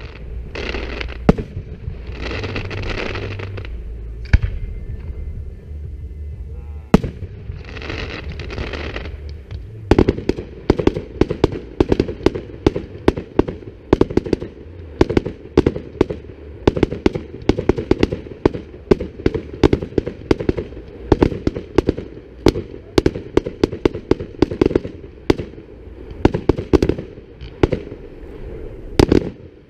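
Fireworks display: a few single bangs of aerial shells in the first ten seconds, then from about ten seconds in a rapid barrage of sharp bangs, several a second.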